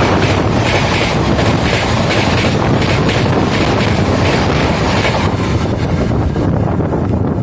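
A train of LHB passenger coaches rushing past on the adjacent track, heard from the window of a moving train, with a regular beat of wheels going by. About five seconds in the passing train clears and the high rush falls away, leaving the running noise of the train the sound is heard from and wind on the microphone.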